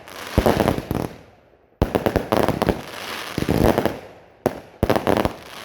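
Fireworks going off in bursts of rapid crackling pops. A new burst starts abruptly about two seconds in and another near the end.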